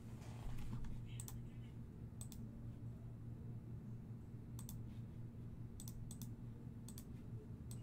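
Faint, sparse clicking, mostly in quick pairs, about seven times, over a steady low hum.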